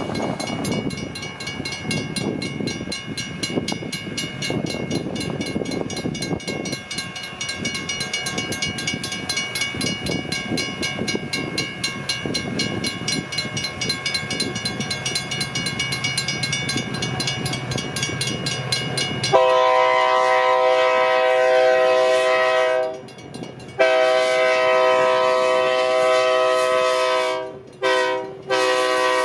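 Steam locomotive working hard, its exhaust beats coming fast and even. About 19 s in this changes abruptly to a loud chime whistle blown in long blasts, broken off a few times near the end.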